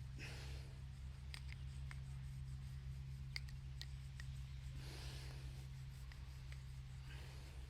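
Faint rubbing strokes of hands during a head and back massage, three soft swishes with scattered light clicks, over a steady low hum.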